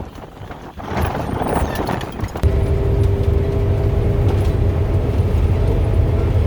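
Wind buffeting the microphone for the first couple of seconds, then, from a sudden change about two and a half seconds in, a semi truck's engine droning steadily as heard from the cab while driving, with a steady hum above the low rumble.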